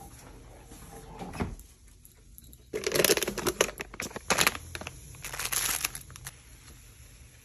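Plastic packaging crinkling and rustling in several short, loud bursts about three, four and a half, and five and a half seconds in, with a soft thump before them.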